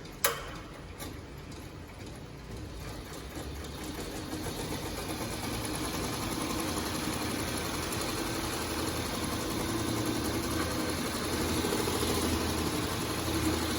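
Elucky embroidery machine stitching on its own, a steady mechanical running that grows gradually louder. A single sharp click comes just after the start.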